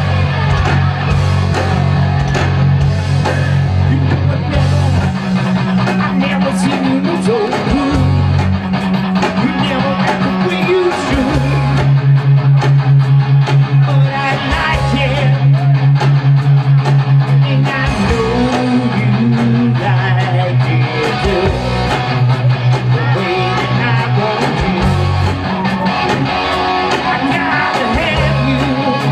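Live rock band playing: electric guitars over a bass guitar holding long low notes that change every few seconds, with drums.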